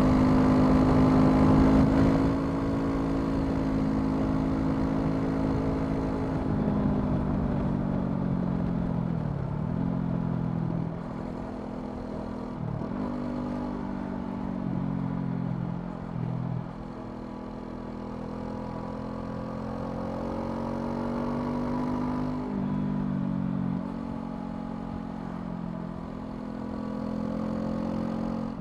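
Honda CL500's 471 cc parallel-twin engine running under way on the road. The revs dip sharply and climb back again several times.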